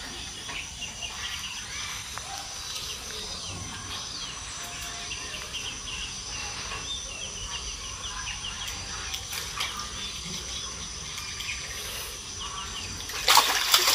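Birds chirping and insects keeping up a steady high drone. Near the end a sudden, much louder rush of water splashing cuts in.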